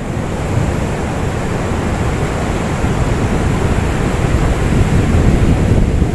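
Ocean surf breaking steadily on the beach, with wind buffeting the microphone and growing a little louder.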